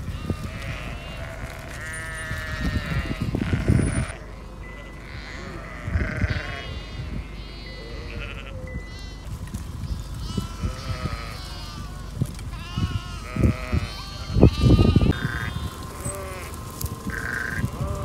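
A flock of ewes and young lambs bleating over and across each other, with many high-pitched lamb calls among lower calls. Two loud low rumbles come through, one about four seconds in and one near fifteen seconds.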